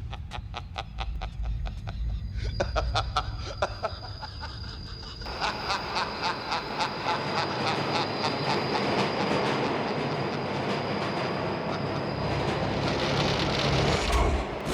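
Subway train running, with rapid clicking of wheels over the rails over a low rumble and a steady high whine; the noise turns louder and denser about five seconds in.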